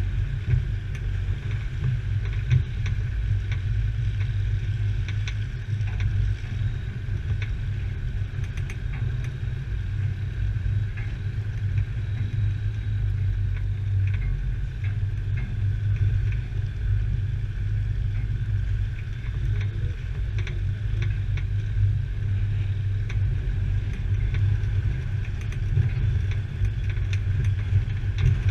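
Off-road 4x4 engine running steadily at low speed, a constant low rumble with occasional light knocks and rattles from the vehicle.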